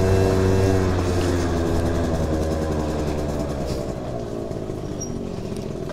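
Aprilia SR50 scooter's 50 cc two-stroke single-cylinder engine running, its revs and loudness falling steadily as the scooter slows down.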